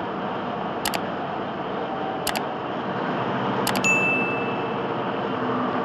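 Subscribe-button overlay sound effects: three quick mouse clicks, the last followed about four seconds in by a single bell ding that rings briefly and fades. Steady road noise from the dashcam vehicle runs underneath.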